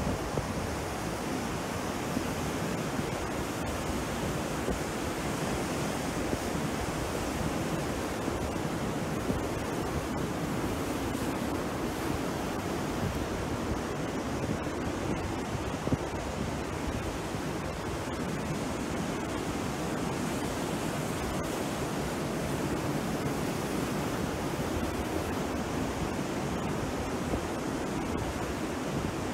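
Rough sea surf breaking and washing onto a beach: a steady rush of water noise with no single wave crash standing out.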